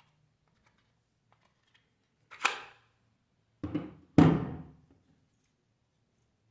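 Handling clatter of rechargeable AA batteries being fitted into a camera speedlite: three sharp knocks, the last two close together and the last the loudest.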